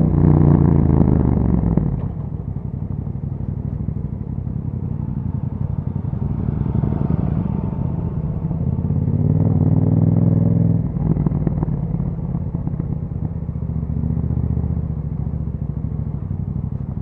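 2021 Yamaha MT-07's 689 cc parallel-twin running through an aftermarket Akrapovic exhaust. Engine speed falls over the first couple of seconds, then settles to a low, steady note. Revs rise somewhat for a few seconds and drop sharply about eleven seconds in.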